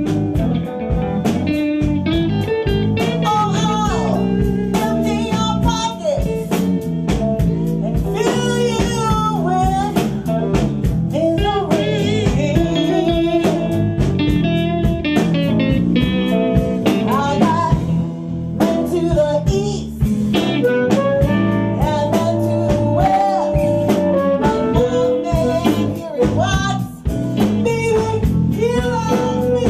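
Live blues band playing: a woman sings into a microphone over electric guitar and a drum beat, picked up live in the room off the amps.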